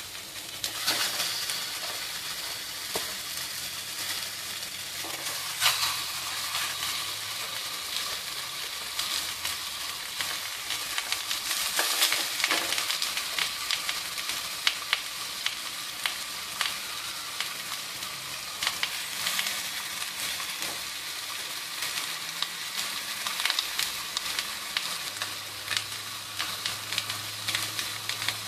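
Pieces of silver catfish sizzling and crackling as they fry in a glass saucepan over a gas flame, with louder spurts of sizzle now and then as more pieces go into the pan.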